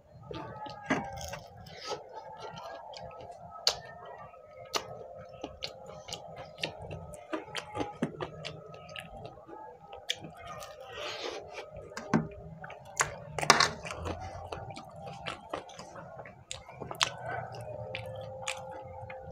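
Close-miked chewing and wet mouth sounds of eating a beef kabab, with many short clicks and smacks, over a faint steady hum.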